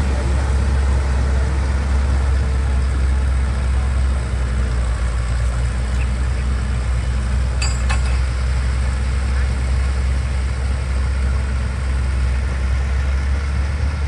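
Heavy diesel engines running steadily with a low, even rumble: a dump truck idling and a bulldozer working. A brief faint high tone sounds about eight seconds in.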